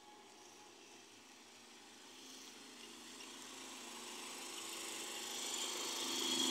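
Toyota ice cream van's engine and tyres approaching and pulling up alongside, starting faint and growing steadily louder.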